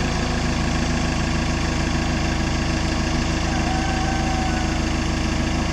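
Engine of a truck-mounted aerial work platform (bucket lift truck) idling steadily.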